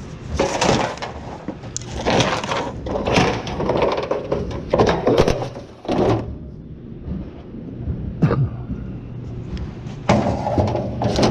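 Scrap metal being handled and dropped: a run of clattering, scraping impacts with a short lull past the middle, a single sharp knock, then more clatter near the end.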